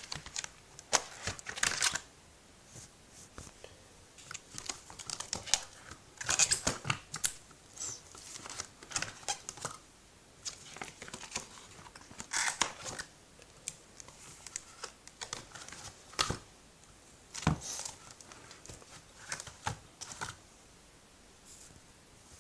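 Plastic card-pocket pages of a ring binder rustling and crinkling as they are turned and handled, in scattered short bursts, with a single soft knock near the end.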